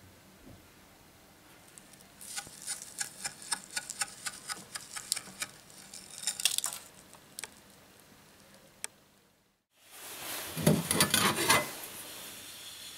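Steel chips ticking and clinking as they land on a metal lathe's chip tray while the tool cuts, a quick irregular patter of small sharp clicks. After a brief silence comes a short, louder rough scraping of metal.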